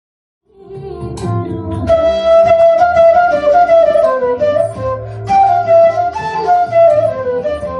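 Background music: a flute-like melody over a low accompaniment, starting about half a second in.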